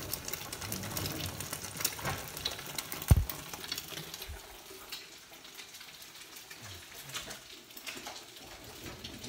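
Egg-white omelet sizzling in a hot frying pan, a crackly hiss with many small pops, quieter in the second half. A single loud thump about three seconds in as the phone is handled.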